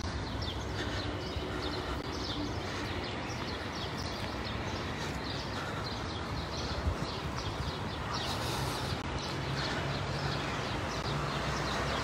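Small birds chirping over and over, over a steady low rumble of distant traffic: outdoor garden ambience.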